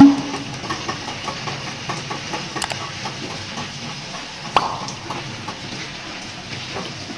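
Motor-driven metal drum spinning: a steady running sound with light rattling, a loud clank at the start and a sharp knock about four and a half seconds in.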